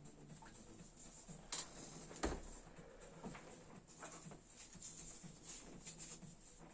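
Faint scattered clicks and knocks, with one louder knock a little over two seconds in.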